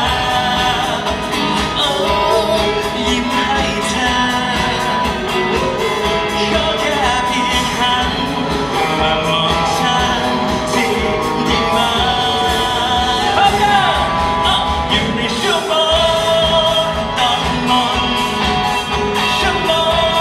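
Live pop-rock band playing loud, with a singer's voice over a steady drum beat.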